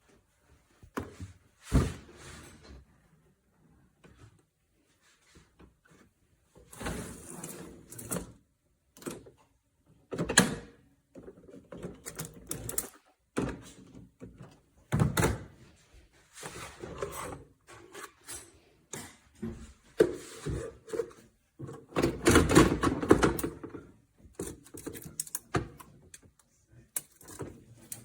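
Irregular knocks, clunks and rattles of kitchen things being handled, such as dishes and the door of a tabletop dishwasher, with a sharp knock about two seconds in and a longer, louder rattle about two-thirds of the way through.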